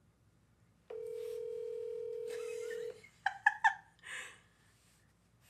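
Smartphone on speakerphone playing a call's ringback tone, one steady ring lasting about two seconds: the outgoing call is ringing and not yet answered. A few short loud sounds follow about a second later.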